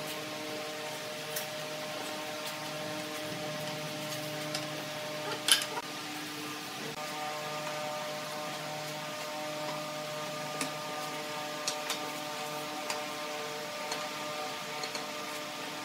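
Scattered light knocks and clicks of wooden bench parts and seat boards being handled and set into a wooden frame, the sharpest about five and a half seconds in and several more near the end, over a steady low hum.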